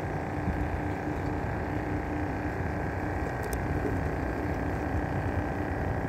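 Boat engine running at a steady low hum.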